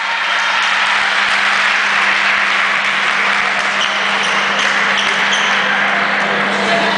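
Spectators applauding in a sports hall, a steady dense clapping that holds throughout, over a low steady hum.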